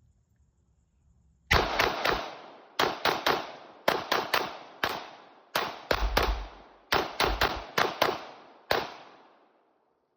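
Glock 19X 9mm pistol firing a string of about twenty full metal jacket rounds, in quick groups of two or three shots. The firing starts about a second and a half in and ends near the end, the last shot's echo fading out.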